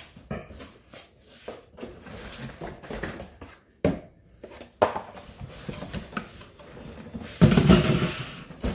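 Rustling, clicks and light knocks of packaging and parts being handled while unboxing a compressor kit, with a louder rustle near the end.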